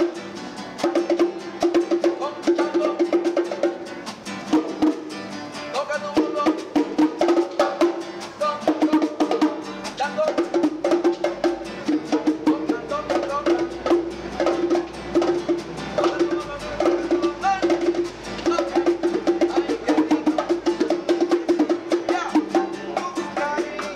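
Live Latin street music: an acoustic guitar strummed with hand-played bongos keeping a quick, steady beat of rapid strokes.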